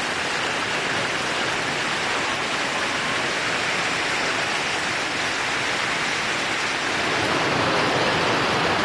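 Heavy hail and rain falling on a street and cars: a dense, steady hiss, a little louder near the end.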